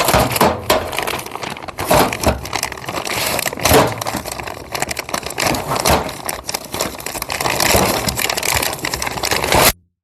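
Plastic packaging crinkling and rustling as a Hurst shifter kit is opened and its bagged parts are handled, with small clicks and knocks of parts, cutting off suddenly near the end.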